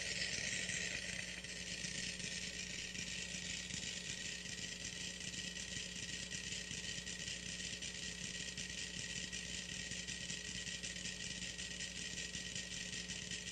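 Dozens of mechanical metronomes ticking out of step with one another, a dense, steady clatter of overlapping clicks.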